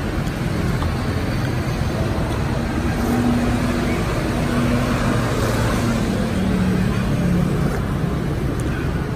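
Steady road traffic noise.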